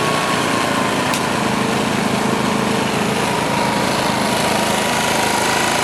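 Small portable petrol generator running steadily with no load after being unplugged. A faint whine in it drops slightly in pitch about three seconds in, and there is a brief click about a second in.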